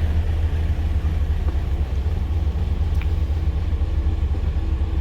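Crane truck's diesel engine running steadily with a low rumble.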